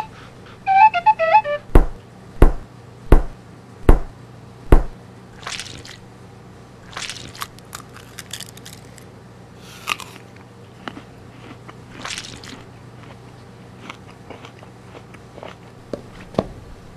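Foley sound effects: a brief run of melodic notes, then five heavy thumps about three quarters of a second apart, then scattered crunching and rustling noises with a few light clicks.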